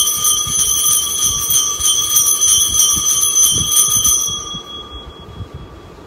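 Altar bells (Sanctus bells) shaken in a rapid, continuous jingle at the elevation of the consecrated host, marking the consecration. The shaking stops about four seconds in and the ringing dies away.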